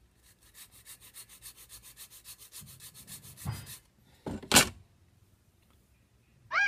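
Rapid, even back-and-forth rubbing strokes of hand-sanding along the edge of a thin wooden model-ship plank, about ten strokes a second, as the plank is tapered. The strokes stop after about three and a half seconds; a single short, loud noise follows about a second later, and a brief high chirp comes right at the end.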